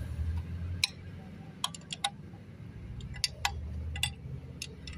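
Irregular sharp metal clicks of a socket wrench being worked on rusty bolts on a mini tractor's differential housing, over a low rumble.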